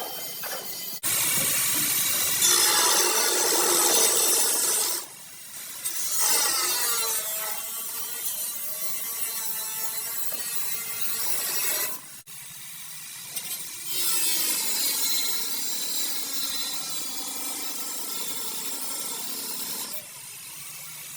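Power grinder working on car body metal in several long passes, a bright rasping noise with a whine, stopping briefly about five, twelve and twenty seconds in.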